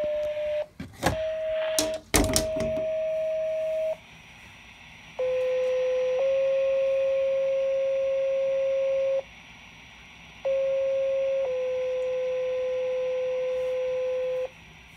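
Two-tone sequential fire pager tones from a handheld radio's speaker, sent in the county pager test to set off the departments' pagers. Two pages are heard, each a short steady tone of about a second followed by a longer tone of about three seconds at a slightly different pitch. Before them, another steady tone is broken by a few loud clicks about one and two seconds in.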